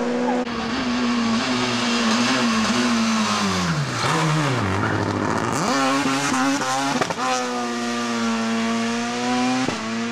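Ford rally car engine revving hard at high rpm. About four seconds in the revs drop as it slows into the corner, then they climb sharply as it accelerates out. Revs stay high after that, with two brief dips.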